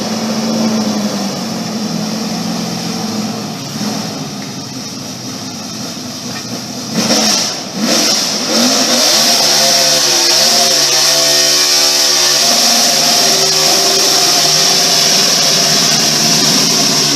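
NASCAR stock car's V8 engine revving hard through a victory burnout, its pitch swinging up and down, with a loud steady tyre squeal setting in about eight seconds in.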